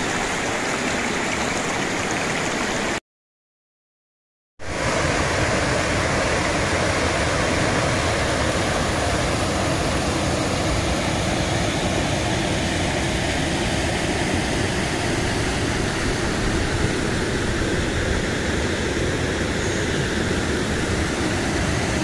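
Mountain brook rushing over rocks, a steady even rush of water. About three seconds in it cuts to total silence for about a second and a half, then carries on.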